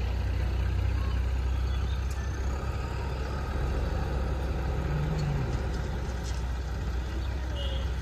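Diesel engines of a JCB backhoe loader and a tractor running steadily while soil is dug, a continuous low rumble.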